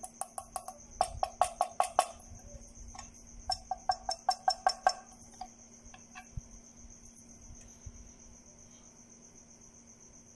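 Quick runs of light, ringing taps and clicks from fog lamps being handled and tapped, once at the start and again a few seconds in, over a steady high-pitched chirring.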